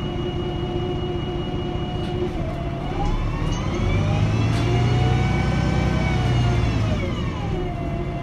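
MAN NL223 city bus's diesel engine and drivetrain heard from inside the cabin: from about three seconds in the pitch rises and a deeper engine rumble swells as the bus accelerates, then about seven seconds in the pitch falls back as it eases off.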